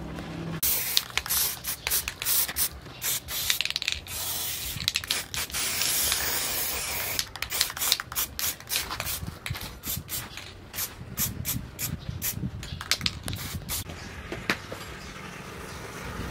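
Aerosol spray can being sprayed onto a steel knife blade: a long run of short hissing bursts, with one longer spray of a few seconds near the middle.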